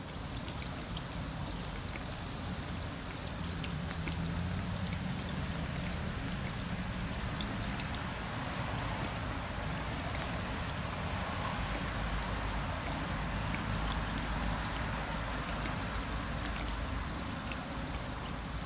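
Hot oil bubbling and sizzling in a stainless steel pot while food deep-fries: a steady hiss with small crackling pops.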